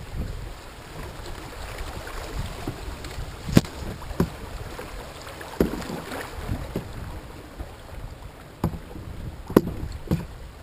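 Canoe moving down a shallow, rippling stream: water washing along the hull, wind rumbling on the microphone, and about six sharp knocks on the boat.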